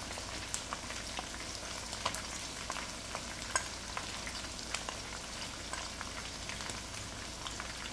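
Chicken and green chillies frying in oil in a karahi: a steady sizzle with scattered small pops and clicks, alongside a metal spoon stirring dry spices on a plate.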